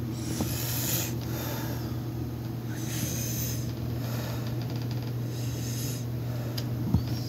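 Slow breathing close to the microphone, three breaths about two and a half seconds apart, over a steady low hum.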